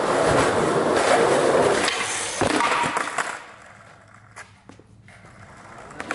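Skateboard wheels rolling on concrete, with a couple of knocks from the board. The rolling fades away after about three seconds, and a few faint clicks follow.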